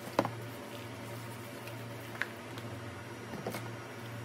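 Packaging being handled as a plastic-wrapped keyboard is lifted out of its cardboard box. There is a sharp knock just after the start, a lighter tick about two seconds in, and a brief scuffle of plastic and cardboard about three and a half seconds in, all over a steady low hum.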